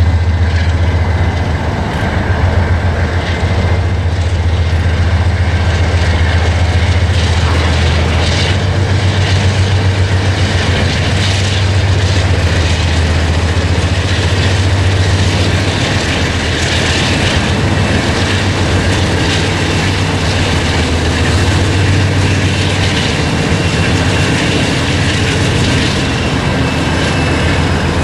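A Norfolk Southern freight train led by three diesel locomotives, their engines running with a steady low drone. From about a third of the way in, wheels clack and rattle over the rails as the train rolls past.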